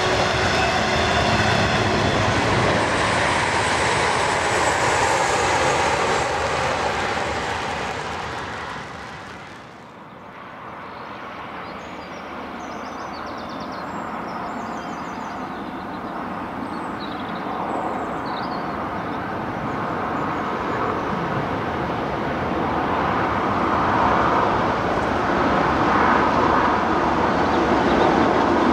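A train running past close by, its noise fading away over the first ten seconds. Then a train approaching, growing steadily louder.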